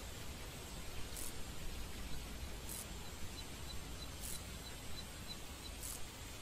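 Steady hiss of background noise, with short faint high-pitched pulses about every second and a half and a run of soft, evenly spaced ticks through the middle.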